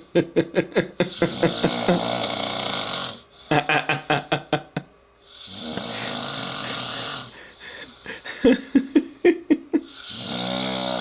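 A man passed out after a few beers, snoring heavily. Three cycles: each a fluttering, rattling snore lasting about a second, then a longer hissing breath, roughly every four to five seconds.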